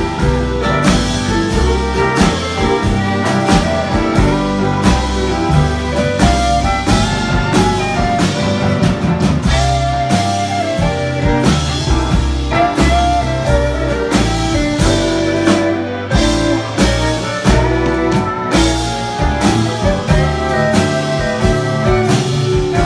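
Western swing band playing live with no singing: two fiddles bowing the melody over electric guitar, steel guitar and drums keeping a steady beat.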